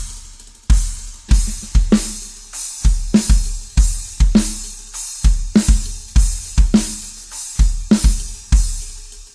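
Drum kit played in a steady groove: kick drum, snare and cymbals. There is a hit about every half second, with the snare landing about once a second.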